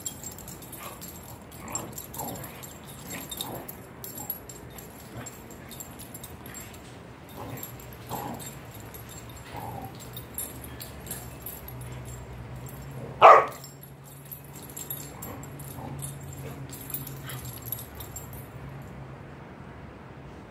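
Dog giving short yips and whimpers while playing with a ball, with one much louder bark a little past halfway.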